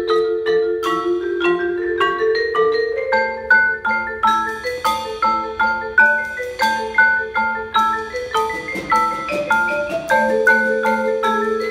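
Mallet percussion ensemble of marimbas and other keyboard percussion playing a quick, rhythmic passage: a run of crisp struck notes, several a second, over steady repeated lower notes.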